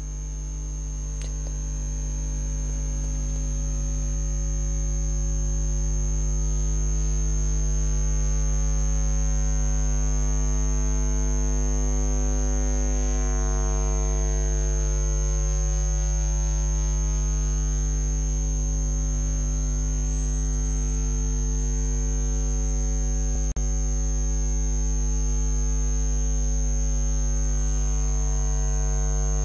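Loud, steady electrical mains hum: a low buzzing tone with its overtones. It swells a little over the first few seconds, and there is one short click about three-quarters of the way through.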